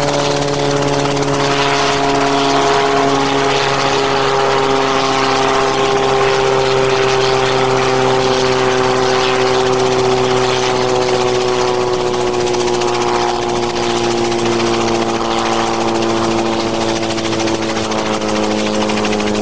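Small helicopter hovering low over the ground: a steady engine-and-rotor drone whose pitch slowly sinks.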